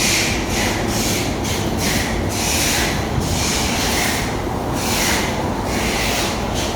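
Factory machinery running steadily, with a short hiss repeating irregularly about once or twice a second over a low rumble.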